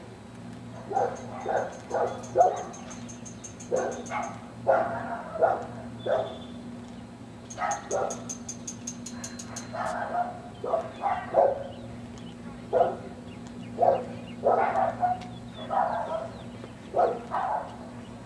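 A dog barking repeatedly, in short single and double barks at irregular intervals, over a steady low hum.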